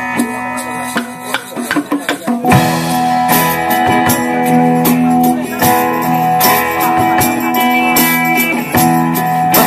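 Live band playing an instrumental passage of a rock song, guitars and drums. It is sparser for the first couple of seconds, then the full band comes back in.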